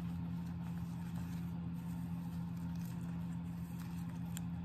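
A steady low hum, with faint crinkles and a few small clicks as a paper sheet foot mask is handled and pulled apart; one sharper click near the end.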